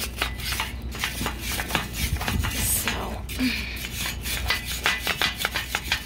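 A hand-held metal tool scraping and tapping against the rusty cast-iron treadle base of an antique Singer sewing machine, in quick, irregular strokes, knocking off loose paint and rust.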